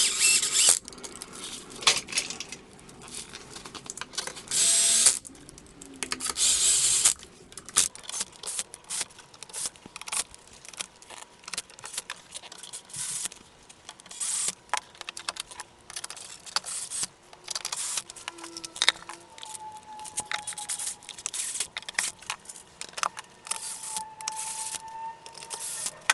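Hand tools and small metal parts clicking and clinking at motorcycle work, with three short hissing spray bursts in the first seven seconds.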